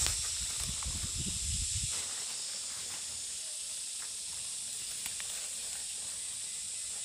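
Outdoor ambience: a steady high hiss throughout, with a low rumble that stops about two seconds in.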